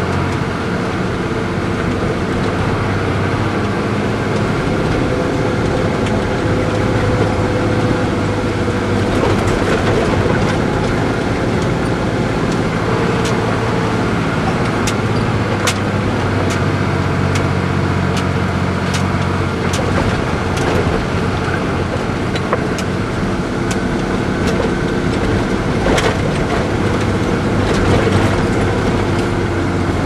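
Engine of a six-wheel propane bobtail tanker truck running steadily in third gear at crawling speed on a gravel road, heard from inside the cab. Scattered sharp clicks and rattles sound over it.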